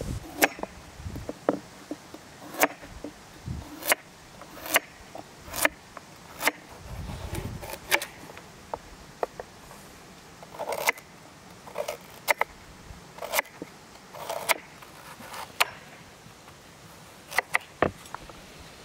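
Large kitchen knife chopping potato and then carrots on a thick wooden cutting board: sharp knocks of the blade hitting the board, irregularly about one a second, with a few quick doubles near the end.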